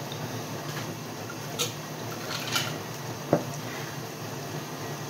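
Ice clinking twice in a plastic cup of soda as it is drunk from, then a single knock as the cup is set down on a wooden table about three seconds in. A dishwasher's steady low hum runs underneath.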